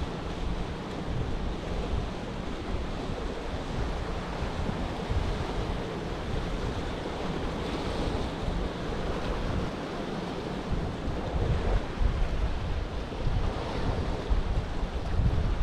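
Sea surf washing along the shore, with wind gusting on the microphone in uneven low rumbles.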